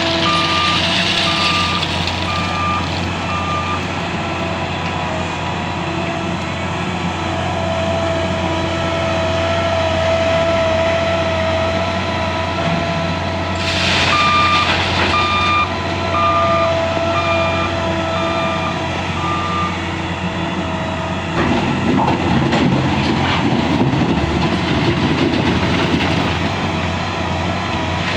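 L&T 9020 wheel loader's diesel engine running under load with a steady whine, its reversing alarm sounding a string of short beeps at the start and again about fourteen seconds in. A sharp knock comes just before the second set of beeps, and the engine turns louder and rougher for the last several seconds.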